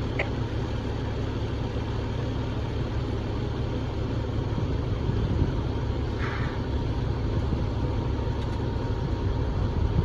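Fire truck engine idling with a steady low rumble.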